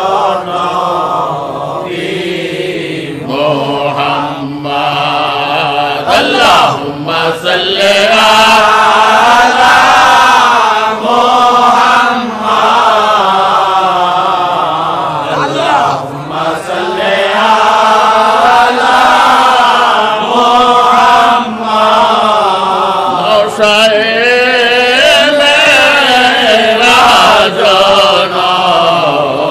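A man chanting milad devotions in a slow, drawn-out melody, holding long notes that rise and fall, with short pauses for breath.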